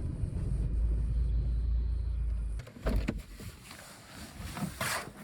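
Low steady rumble of a car running, heard from inside the cabin, stops abruptly about two and a half seconds in. A thump follows, then scattered knocks and a short hiss near the end.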